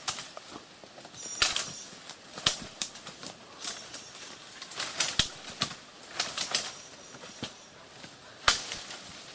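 Irregular sharp cracks and snaps of branches and brush being pulled and broken by hand, with rustling of leaves between them.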